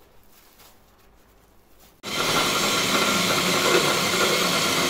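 An electric food chopper switches on about two seconds in and runs steadily at full speed, grinding bread crumb.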